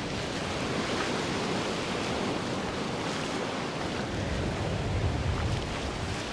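Ocean surf washing steadily onto the beach, with some wind buffeting the microphone.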